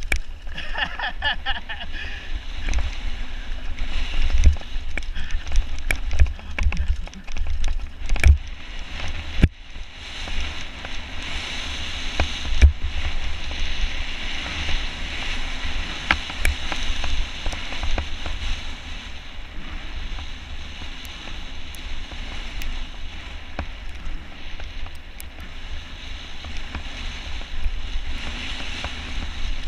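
Mountain bike riding down a loose dirt and gravel trail: wind buffeting the microphone in a constant low rumble, tyres hissing and crunching over the gravel, and scattered sharp knocks and rattles as the bike hits stones.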